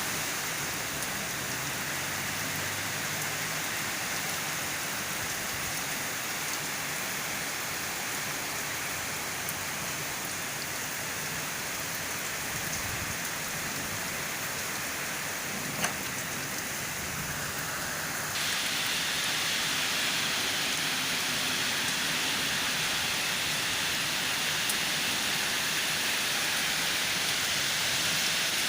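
Heavy storm rain pouring steadily, a dense even hiss, which abruptly grows louder about two-thirds of the way through. A single sharp tick sounds shortly before that.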